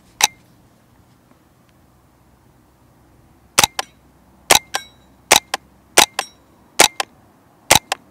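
A sound-moderated Smith & Wesson M&P 15-22 semi-automatic .22 rimfire rifle firing: one shot just after the start, then six shots in steady succession a little under a second apart. Each shot has a fainter sharp sound a fraction of a second after it.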